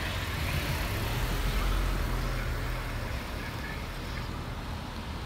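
Car engine running close by. Its low hum grows louder about a second in and eases off after about three seconds.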